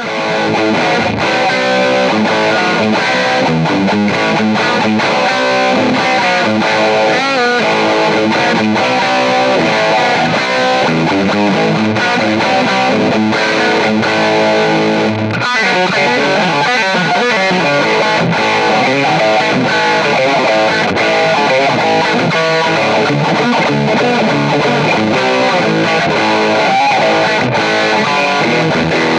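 Background music led by distorted electric guitar, loud and continuous, with a brief break about halfway through.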